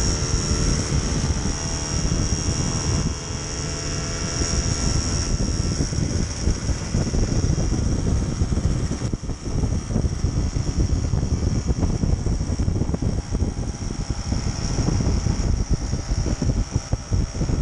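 The small two-stroke engine of a 1969 Solex 3800 moped, 49.9 cc, running steadily while riding at cruising speed. Wind rumbles on the microphone throughout.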